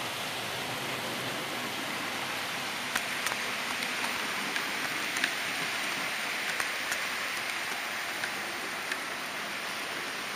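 HO scale model train running along the track, a steady rushing noise broken by scattered sharp clicks from the wheels on the rails.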